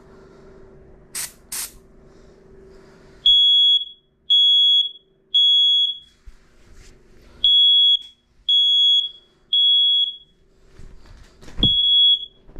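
Two short hisses of aerosol smoke-test spray, then a smoke alarm's piezo horn goes off in the temporal-three pattern: three high half-second beeps, a pause, three more, and a third set starting near the end. There is a single knock just before the last set.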